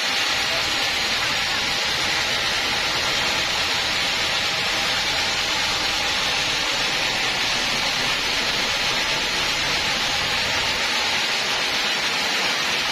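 Large band-saw mill ripping a thick teak slab: a steady hissing whine of the blade in the cut, with a low rumble underneath that drops away near the end.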